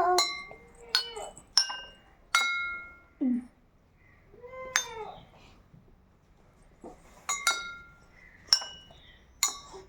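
Drinking glasses filled with water struck one after another, about nine taps, each a short ringing ping at a different pitch. Several taps come in the first two and a half seconds, one stands alone near the middle, and a quicker run comes near the end.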